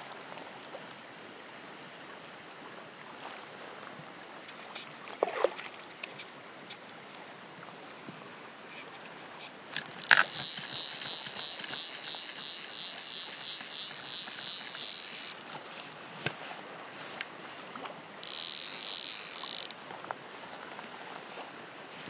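Fly reel clicking in a rapid, even buzz as a hooked fish pulls line off the spool. One run lasts about five seconds, starting about ten seconds in, and a shorter run of about a second and a half comes near the end.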